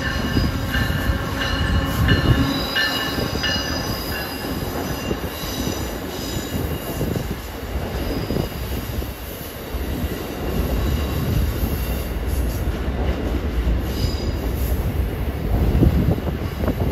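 Amtrak passenger train led by an ACS-64 electric locomotive rolling slowly past. Its wheels squeal on the curved track with a few thin high tones in the first few seconds. Then comes a steady rumble of the Amfleet cars over the rails.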